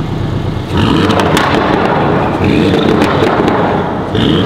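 Porsche 718 Boxster GTS's 2.5-litre turbocharged flat-four, on an aftermarket exhaust and tune, idling and then revved hard in neutral in three surges from about a second in, with crackling pops from the exhaust.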